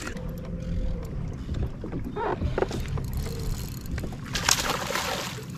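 A boat motor hums steadily, with a short burst of hissing noise about four and a half seconds in.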